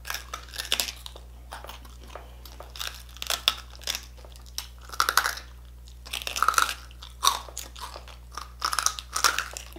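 Crunching and chewing of crispy pata, the deep-fried pork knuckle's crackling skin, as two people bite into and chew pieces. The crunches come irregularly throughout, with louder clusters about five, six and a half and nine seconds in.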